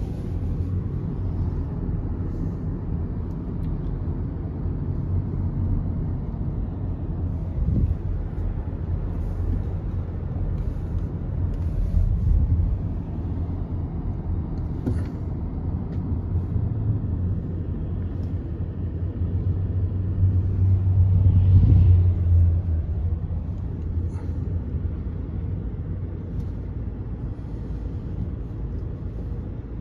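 Road and engine noise heard inside a moving car's cabin: a steady low rumble that swells around twelve seconds in and again about twenty to twenty-two seconds in.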